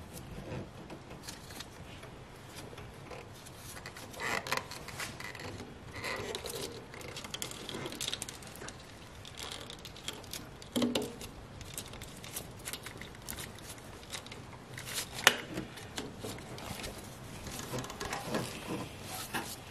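Irregular small clicks, taps and scrapes of a long wrench being fitted to and levered on the drive-belt tensioner as a serpentine belt is worked onto the pulleys, with one sharp metallic click about fifteen seconds in.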